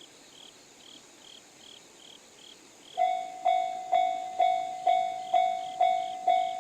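Japanese railway level-crossing warning bell, the electronic JR standard tone, starting about three seconds in and ringing in even strikes about two a second, each one fading before the next: the crossing alarm for an approaching train. Before it, only faint, evenly repeated high chirps.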